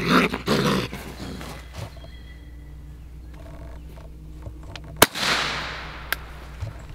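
A single gunshot about five seconds in, dispatching a raccoon held in a dog-proof trap, followed by a brief echo trailing off.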